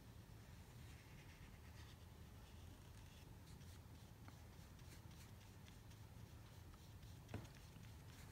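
Near silence: faint strokes of a paintbrush working paint on paper, over a low steady hum, with one light tap about seven seconds in.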